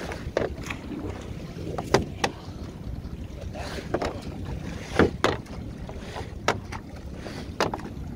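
Steady low rumble of a small open boat on choppy water with wind on the microphone, broken about seven times by short sharp knocks and slaps as a trammel net is fed over the gunwale, the loudest about two and five seconds in.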